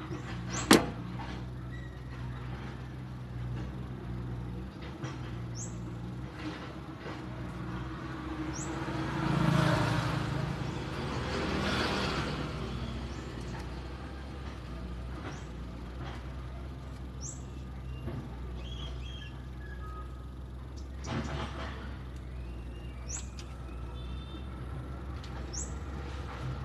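Outdoor background: a steady low motor hum, with a vehicle passing, swelling and fading, near the middle. A sharp click about a second in, and short bird chirps now and then.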